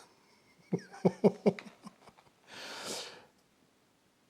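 A person hesitating mid-sentence: a quick run of short mouth clicks and small throaty sounds, then one breath out about halfway through.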